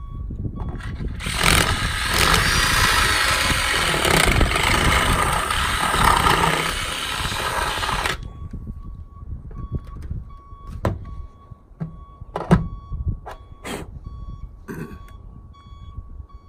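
Cordless drill running for about seven seconds, boring out a 7/16-inch hole in a truck's sheet-metal cab roof. Then a vehicle's reversing alarm beeps steadily, with a few sharp knocks.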